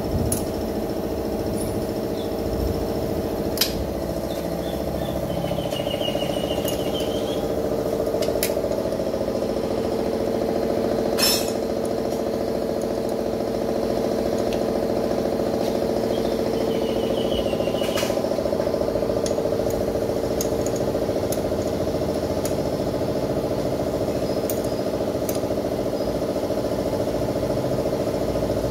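Engine of a farm machine running steadily at an even speed, with a few light clicks over it.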